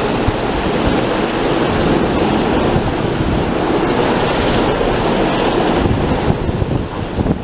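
Wind buffeting the microphone over the steady rush of the open sea.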